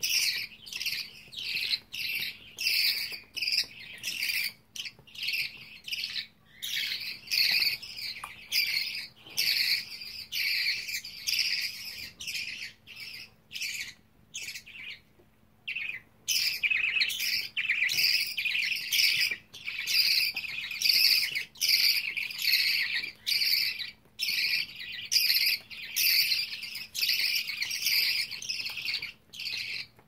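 Budgerigar chicks calling during hand-feeding: a long run of short, raspy, repeated chirps, several a second, with a brief lull about halfway through. This is the begging call of chicks wanting food.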